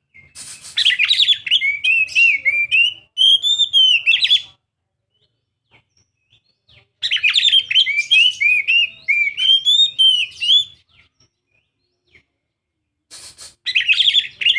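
Young oriental magpie-robin singing in three bursts of fast, varied warbling and whistled notes, separated by pauses of about two seconds.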